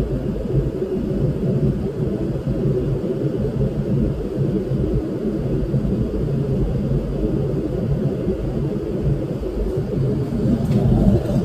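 A steady low rumble, even throughout, with no clear rhythm or pitch.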